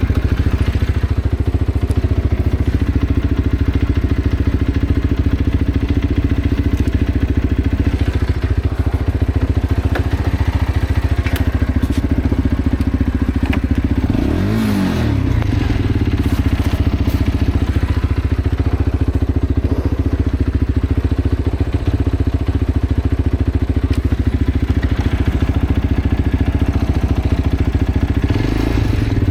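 Road motorcycle's engine running steadily, with one short rev rising and falling about halfway through.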